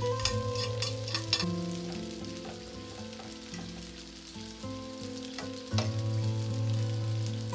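Butter garlic shrimp and pasta sizzling in a frying pan as they are stirred and tossed, with a few sharp clicks of a plate and utensil against the pan in the first second and a half. Soft background music with sustained notes runs underneath.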